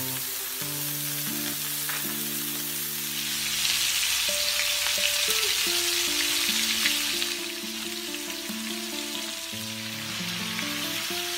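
Filet mignon steaks frying in butter in a pan, a steady sizzle that grows louder for about four seconds in the middle. Soft background music with held notes plays underneath.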